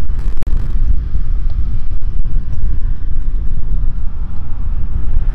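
Wind buffeting the microphone with a steady low rumble from riding a Cowboy electric bike along a rough, potholed road, with a couple of faint knocks.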